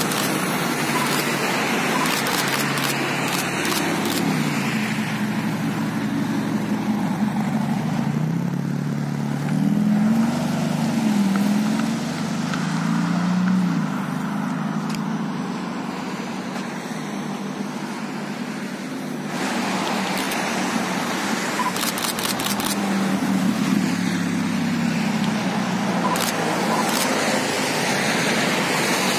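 Ferrari Roma's 3.9-litre twin-turbo V8 driving off and accelerating, its engine note rising and falling through the middle, over steady road traffic noise. A few sharp clicks come near the start and near the end.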